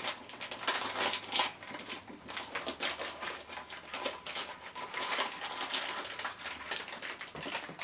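Foil blind-pack wrapper crinkling and crackling as it is torn open by hand, a rapid run of sharp crackles.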